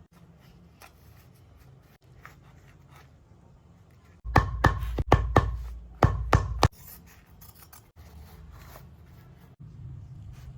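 Several sharp tool strikes in quick succession, about halfway through, over a low rumble lasting a little over two seconds, during shoe repair work.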